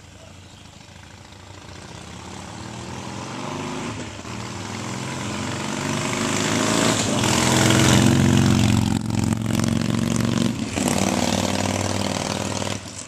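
Harley-Davidson Sportster Forty-Eight's 1200 cc V-twin breathing through Vance & Hines Twin Slash 3-inch slip-on mufflers, riding toward the listener and accelerating, its pitch rising and the sound growing steadily louder. It goes past at its loudest about two-thirds of the way in, then pulls away with two brief dips in the sound.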